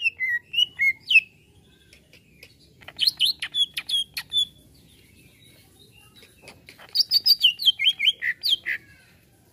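Greater green leafbird (cucak ijo) singing in three bursts of rapid, varied chirps and whistles. The first ends about a second in, the second comes about three seconds in and the third about seven seconds in, with quiet gaps between.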